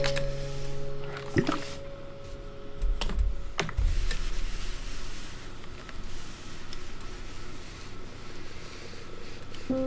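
Clothes iron sliding and rubbing over linen-viscose fabric on an ironing board while a seam is pressed open. There are a few sharp clicks and a couple of low thumps in the first four seconds.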